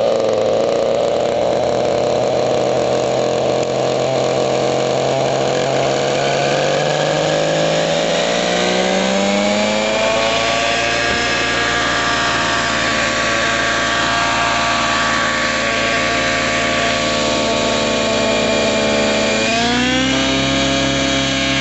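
Miniature Aircraft Stratus RC helicopter's glow-fuel engine and rotor running on the ground, spooling up. The pitch climbs steadily over a few seconds, holds level, then rises again near the end.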